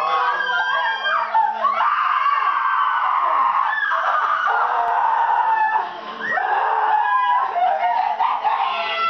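Several young people shrieking and squealing together in high, gliding voices, with a short lull about six seconds in.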